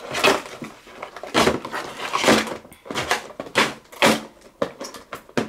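Pikachu figure's cardboard-and-clear-plastic box being handled: a string of separate scrapes, rustles and knocks as its top flap is worked open and the box is lifted and moved on the table.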